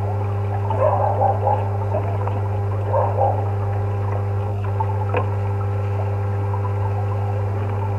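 Close-miked mouth sounds of a man slurping and chewing pasta noodles, two short clusters in the first few seconds, over a steady low hum; a light click a little after the middle.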